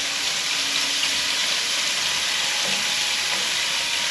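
Thick-sliced bacon pieces sizzling steadily as they fry in their own rendering fat in a pan.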